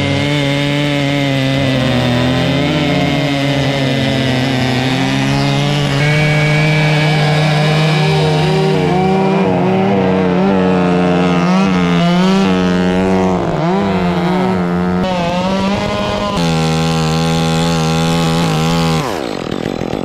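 Two-stroke chainsaw running at high revs, bucking a felled maple trunk. Its pitch wavers through the middle as the chain loads up in the cut. About a second before the end the engine drops back toward idle with a falling pitch.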